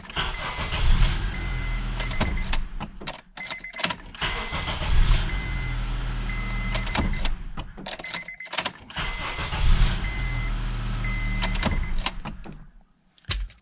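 Honda Accord engine started with the key three times, cranking and catching promptly each time, running briefly and switched off, with key clicks between starts and a dashboard warning chime beeping in short repeated tones. It starts normally now that the faulty ignition switch has been replaced.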